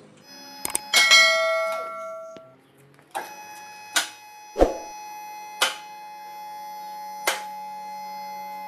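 Subscribe-button sound effect: two quick clicks followed by a bell chime that rings and fades over about a second and a half. Then a steady ringing tone with several soft strikes at uneven intervals.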